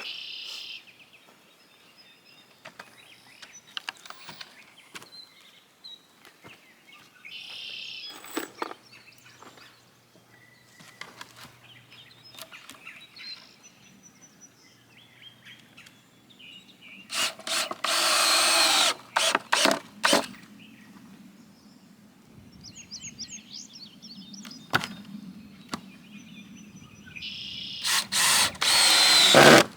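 Cordless drill driving screws in bursts: one long run about 17 seconds in, then several short pulses, and another set near the end. Between them come wood-handling knocks and a few bird chirps.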